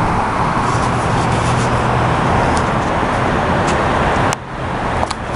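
Steady road traffic noise with a low engine hum underneath. It drops suddenly about four seconds in, and a few sharp clicks follow near the end.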